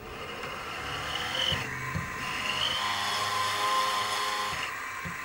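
Milling machine spindle running with a 1/2-inch end mill cutting into cherry wood, counterboring a hole for a nut: a steady motor whine over a cutting hiss, and the hiss breaks off briefly twice.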